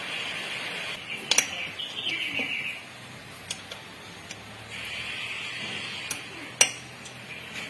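A few sharp metal clinks of tools and transmission parts being handled, the loudest about a second and a half in and another near the end. Under them runs a steady high chirring that drops out for a couple of seconds in the middle.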